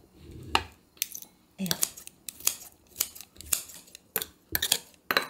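Kitchen scissors snipping pickled jalapeño slices into small pieces in a ceramic dish, a crisp snip about twice a second.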